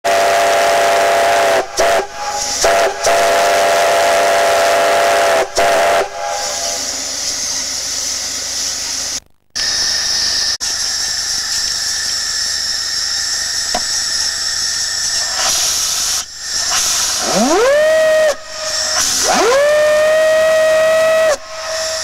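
Steam whistles being blown on a steam engine. First a chord whistle of several notes sounds in a run of short blasts. Then steady steam hiss, and near the end a single-note whistle sounds twice, each blast sweeping sharply up in pitch as it opens before holding a steady note.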